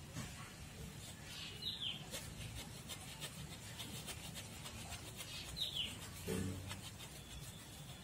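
Hacksaw cutting through a tree's thick primary roots, faint rasping strokes coming fastest between about two and five seconds in.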